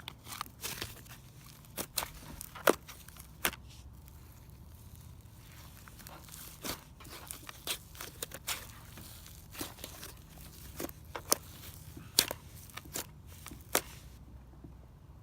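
Icy slime made of clear glue and instant snow powder being squeezed and kneaded by hand, giving irregular crisp crackles and pops.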